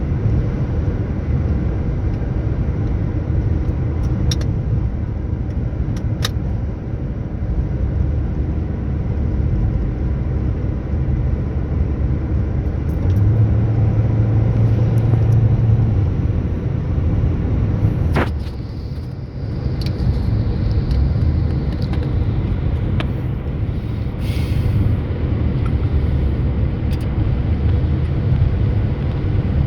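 Steady low rumble of a car driving along a road, with a brief dip about eighteen seconds in.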